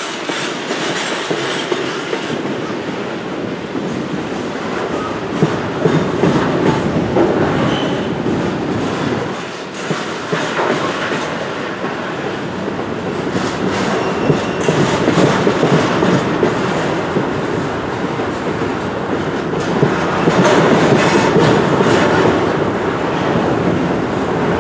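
Double-stack intermodal container well cars rolling slowly by on steel rails. A steady rumble of wheels on track runs under irregular clicks and clacks from the wheels and cars.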